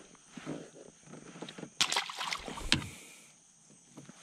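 Handling noise in a plastic fishing kayak as a small bass is released: a string of knocks and clatters on the hull with water splashing, loudest about two seconds in.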